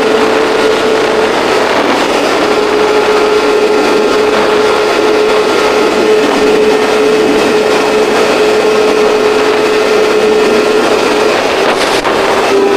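A vehicle engine running loud and steady at constant speed, with a steady whine over dense noise. It breaks off briefly near the end and resumes slightly lower in pitch.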